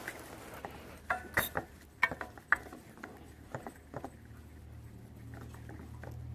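Clicks and knocks from the valve and fittings of a MagneGas 2 fuel bottle being opened and handled. A steady low rumble then sets in about halfway through.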